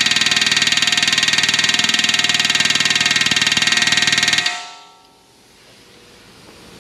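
Pneumatic air hammer firing in a rapid, steady stream against the steering knuckle, driving the knuckle down off the strut. It stops about four and a half seconds in, and the metal rings briefly as it fades.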